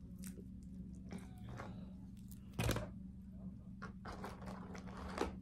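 Aluminium foil food wrapping crinkling and rustling as it is handled, with a sharper crackle about two and a half seconds in and a longer stretch of crinkling near the end.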